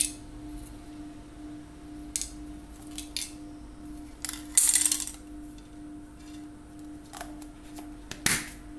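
Hands handling a metal aerosol spray can and its plastic cap: light knocks and clinks, a louder brief metallic clatter about halfway, and a sharp snap near the end as the cap is pushed onto the can. A faint steady hum runs underneath.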